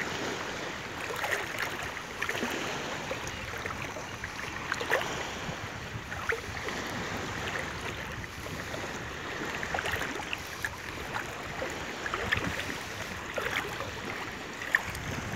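Shallow seawater sloshing and splashing around the legs of people wading waist-deep, with irregular small splashes over a steady wash of water noise.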